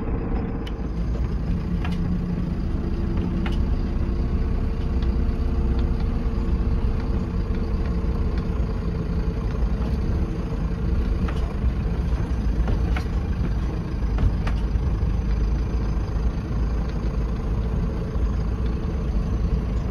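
Mercedes-Benz Vario expedition truck's diesel engine running steadily at low speed as the truck drives over a grassy field track, with a few short knocks scattered through.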